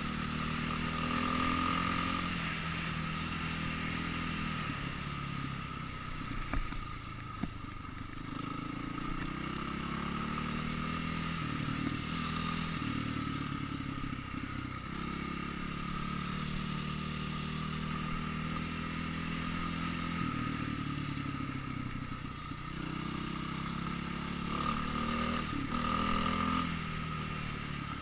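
Dirt bike engine riding a rocky trail, its note rising and falling again and again as the throttle opens and eases off. A couple of sharp knocks come about a quarter of the way in.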